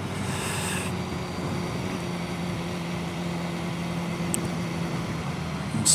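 2015 BMW S1000XR's inline-four engine running at a steady low speed, a constant even hum.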